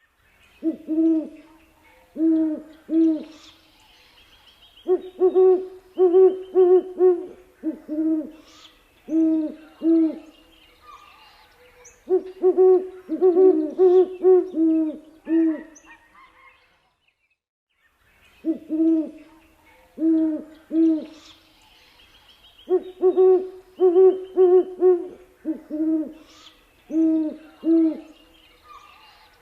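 Great horned owl hooting: low, deep hoots in bursts of two to five, with a pause of about two seconds midway before the hooting resumes.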